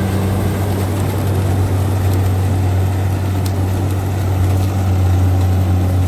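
Kubota DC-70 combine harvester's diesel engine running steadily under load while it cuts and threshes rice, a continuous low drone that grows slightly louder.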